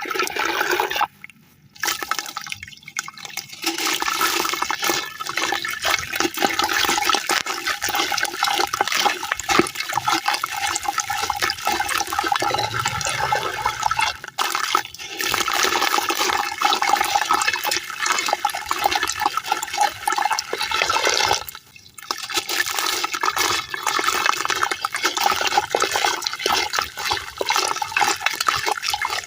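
Sand-cement chunks crumbling and being crushed in water: a dense, gritty crackle mixed with sloshing, broken by a few brief pauses.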